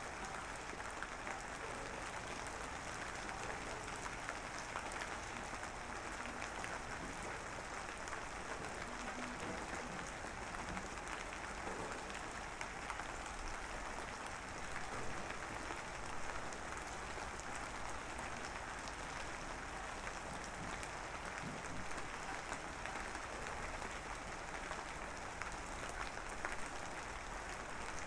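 Steady drizzling rain, an even hiss made up of many small drops.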